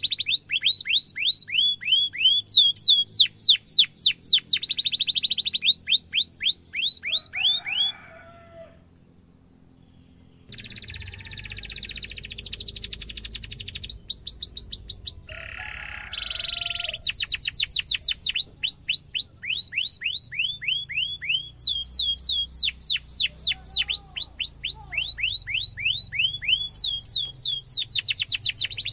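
Domestic canary singing: long runs of rapid, sharply falling 'cuit cuit' whistles alternating with buzzy rolled trills. The song breaks off for about two seconds some eight seconds in, then resumes.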